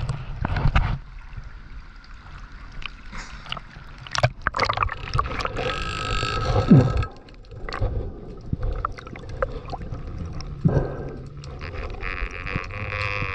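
Water sloshing against an action camera at the surface, then muffled underwater sound with scattered sharp clicks and gurgles and a low falling sweep a little past halfway.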